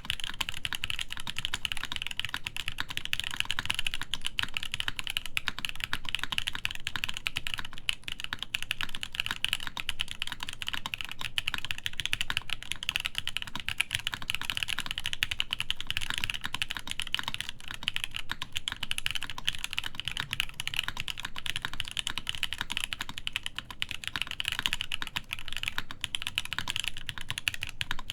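Continuous fast typing on a top-mount mechanical keyboard with lubed linear JWK/Moyu Poseidon switches in an aluminium plate and DCS keycaps: a dense, even stream of key clacks.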